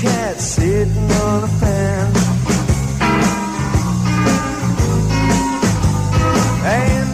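A rock band playing an instrumental passage live: electric guitar with notes that bend and slide, over a steady bass line and drums.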